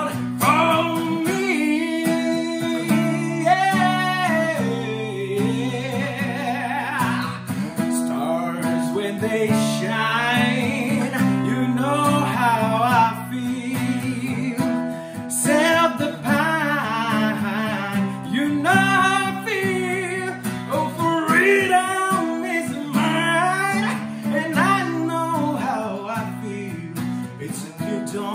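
A man singing solo to his own strummed Yamaha cutaway acoustic guitar, the vocal line bending and sliding over steady chords.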